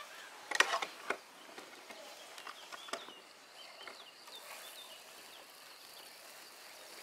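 A few sharp clicks or knocks close together about half a second in, and one more near three seconds, over faint bird chirping in the background.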